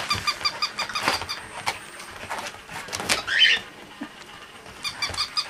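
Battery-operated plush toy dog running with a fast, even chirping that stops a little over a second in and starts again near the end. A Pomeranian tussles with the toy, adding scattered knocks and a brief squeal.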